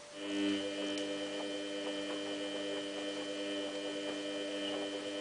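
Samsung WF8804RPA washing machine running with a steady electrical hum, a few clear tones together, that starts just after the beginning.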